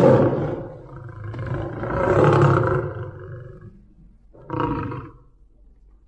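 Big cat roaring: three loud, deep roars. The second is the longest, at about two and a half seconds, and the third is shorter, about four and a half seconds in.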